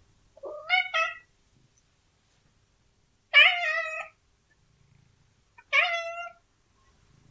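Domestic cat meowing: three meows about two and a half seconds apart. The first is broken in two, and the second is the longest.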